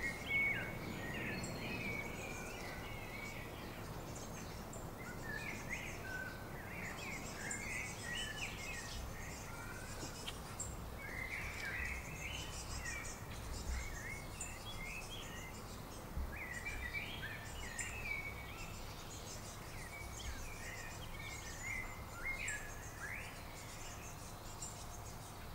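Garden songbirds singing short phrases of sliding notes, repeated every few seconds, with fainter high chirps above and a steady low background rumble.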